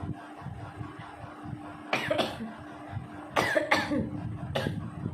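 A woman coughing about five times in short sharp bursts, roughly in pairs, while twisting a cotton bud inside her nose to provoke a sneeze.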